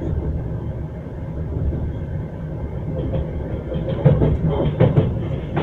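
Train wheels running on the rails with a steady low rumble, then the clack of wheels over rail joints setting in a few times a second near the end.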